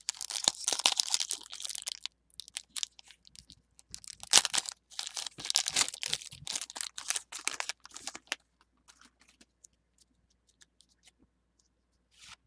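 Foil Pokémon booster pack wrapper crinkling and tearing open, in a dense rustle for the first two seconds and again from about four to eight seconds in, then only faint scattered ticks.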